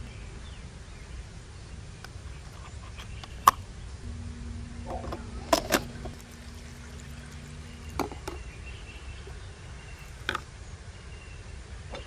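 Scattered hard plastic clicks and knocks from handling the pull-out capsule holder of a Makita cordless coffee maker, the loudest a quick pair about halfway through. They sit over a steady low outdoor rumble.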